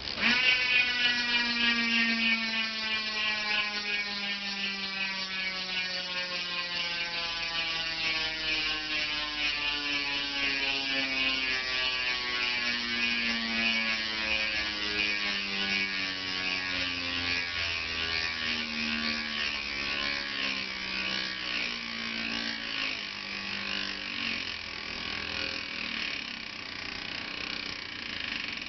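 Chris King ring-drive rear hub freewheeling: its ratchet buzzes loudly as the wheel spins freely, starting suddenly and sinking slowly in pitch as the wheel coasts down.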